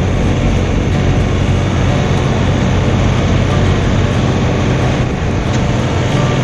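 John Deere 3046R compact tractor's diesel engine running steadily under load, driving its front-mounted PTO snow blower as it throws snow.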